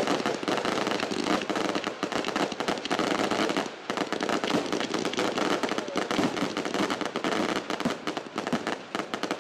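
Fireworks finale: a dense, continuous barrage of aerial shells launching and bursting, many bangs and crackles overlapping with hardly a break and one brief dip just before four seconds in.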